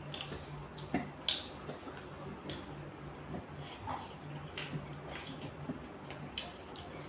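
Eating sounds at close range: scattered soft clicks and smacks of chewing, with fingers working rice on steel plates. A low steady hum runs underneath.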